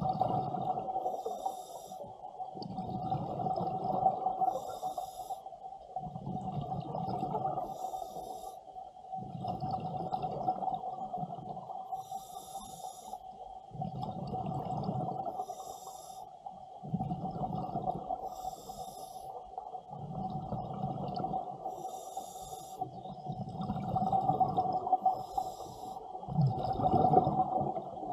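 Scuba diver breathing through a regulator underwater: a hiss on each inhalation alternates with the low bubbling rumble of exhaled bubbles, about one breath every three and a half seconds. A steady mid-pitched tone runs underneath.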